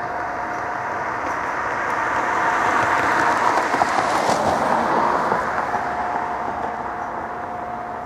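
A vehicle passes on a nearby road. Its noise swells to a peak about four seconds in, then fades. Underneath runs a steady distant tone, drowned out while the vehicle is closest.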